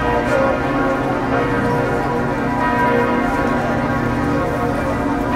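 Church bells pealing, their ringing tones overlapping into a steady, continuous wash.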